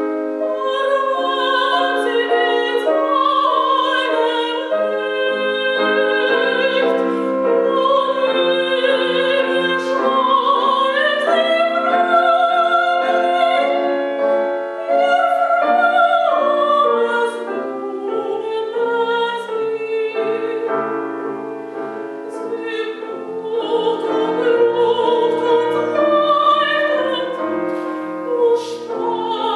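Soprano singing in classical style with vibrato, accompanied by piano.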